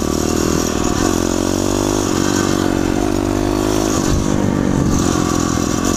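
A 2015 SSR 125 pit bike with a swapped-in Piranha 140cc single-cylinder four-stroke engine, running at steady cruising speed. Its pitch rises and dips slightly a few times.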